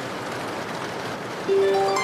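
Steady rain hiss, with a harp coming in about one and a half seconds in: a plucked low note followed by a quick run of higher notes.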